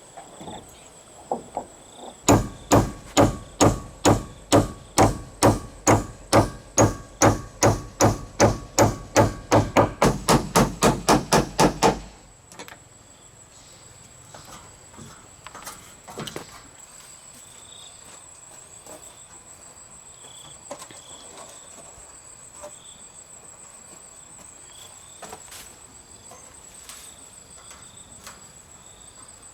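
Hammer blows struck in a steady run of about two a second, quickening to about four a second, then stopping abruptly; each blow rings a little. A few faint taps follow, over a steady high chirring of insects.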